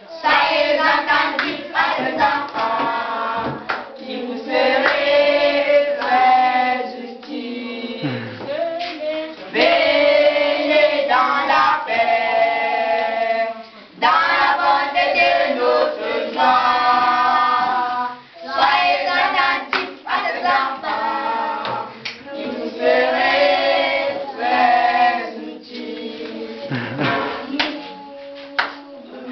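A group of children singing a song together in chorus, phrase by phrase, with short breaks between phrases.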